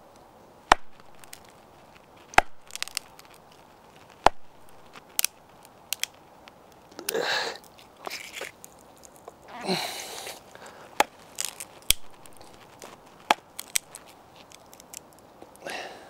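Morakniv Robust knife blade stabbing and prying into a dry wooden board: a series of sharp separate knocks, with two longer crackling, splintering sounds about seven and ten seconds in as the wood tears.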